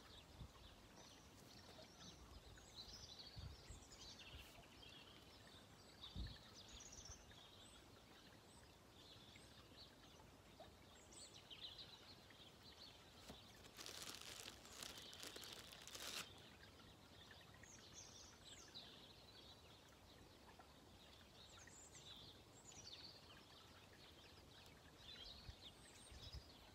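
Faint, scattered bird chirps over a quiet background, with a brief rustle lasting about two seconds a little past halfway through.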